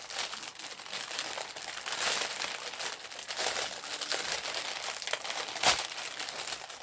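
Packaging crinkling and rustling steadily as it is handled and unwrapped, with small clicks throughout and a sharper click about five and a half seconds in.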